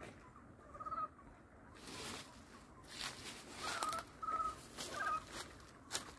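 A bird giving short, repeated calls, one about a second in and several more in quick succession around the middle, over faint outdoor hiss with rustling and a few sharp clicks.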